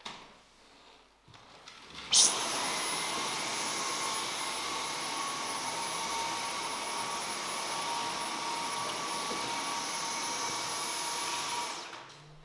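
Dyson V10 cordless stick vacuum switched on about two seconds in: the motor spins up with a quick rising whine, then runs steadily with a high whine and rushing air while vacuuming the floor, and winds down shortly before the end.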